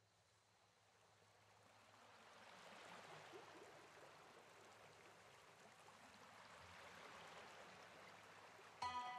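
A faint, steady rushing noise, like running water, fades in over the first few seconds and holds. Music with sustained notes begins just before the end.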